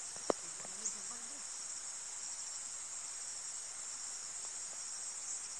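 Steady, high-pitched insect chorus, a continuous shrill trill, with a couple of sharp clicks in the first second.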